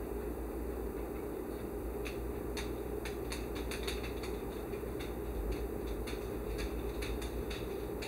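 Vintage Sunbeam T-9 automatic toaster toasting, its elements on: a steady low hum with irregular light ticks and clicks from the hot toaster, starting about two seconds in and growing more frequent.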